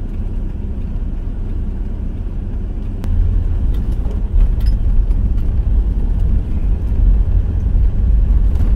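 Hyundai Starex van driving along a road: a steady low rumble of road and engine that grows louder about three seconds in.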